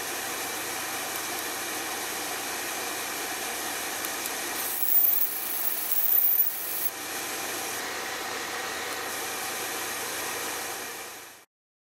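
Laser engraving machine running: a steady mechanical hiss with a low hum, and a louder high-pitched whine from about five seconds in, lasting about two seconds. The sound cuts off suddenly near the end.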